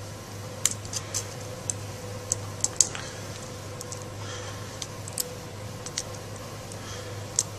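Small flathead screwdriver and a plastic screw-terminal connector being worked as a wire is fastened into it: a scatter of sharp, irregular clicks, thickest in the first three seconds and fewer after, over a steady low hum.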